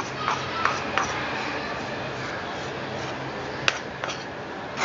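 A few light, sharp clicks and knocks of kitchen utensils against a mixing vessel, scattered over a steady background hiss and faint low hum.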